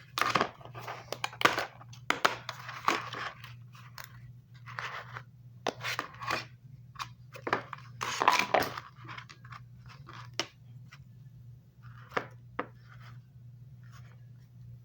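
Packaging being worked at with scissors: irregular bursts of crinkling, snipping and tearing, busiest in the first few seconds and again around eight seconds in, sparser toward the end.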